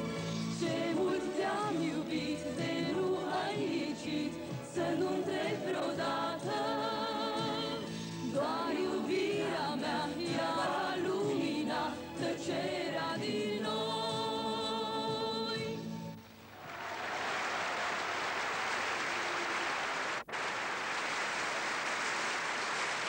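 A female pop singer with a light-music orchestra and backing choir finishes a song on a long held note. About sixteen seconds in the music stops and the audience applauds, with a brief dropout a few seconds later.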